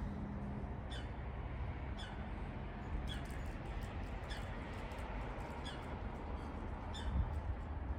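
A short high chirp, each one falling slightly in pitch, repeating about once a second over a steady low rumble and hiss.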